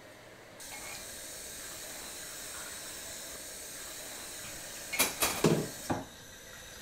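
Kitchen tap turned on about half a second in and running steadily into the sink, with a short clatter of knocks, like dishes or a pan against the basin, about five seconds in.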